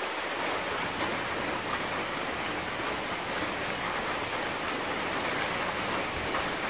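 Steady rain falling on a corrugated roof overhead, a continuous even hiss.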